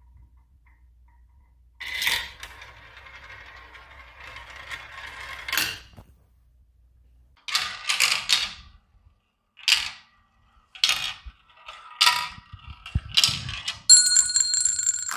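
Marbles rolling along a marble run track, first as a continuous rattling roll, then as a string of separate sharp clacks as they drop from piece to piece. Near the end a bell-like ring sounds over the clacking.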